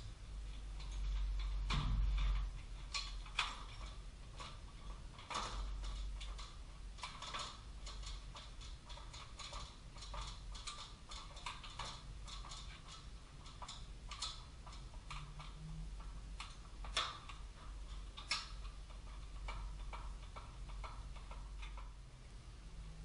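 Irregular metallic clicks and clinks of hand tools working on metal car parts, with a few louder knocks, over a steady low hum.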